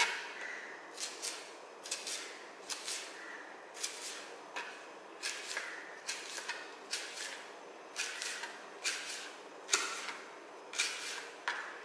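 Kitchen knife slicing red chilies into strips on a plastic cutting board: a run of short cuts, about one to two a second, each blade stroke ending with a tap on the board.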